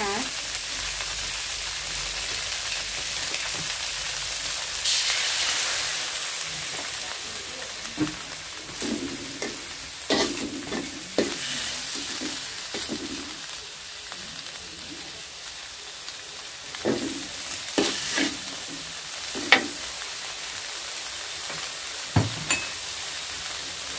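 Shredded fish, chilli and garlic sizzling in an aluminium wok while a metal slotted spatula stirs and scrapes the pan. About five seconds in the hiss swells louder as a little water goes in, then fades. Scattered spatula scrapes and knocks on the wok follow.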